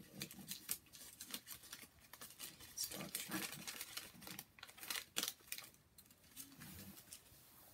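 Candy bar wrapper crinkling and tearing as it is opened and peeled back from a dark chocolate bar: a rapid run of crackles, busiest from about three to five and a half seconds in.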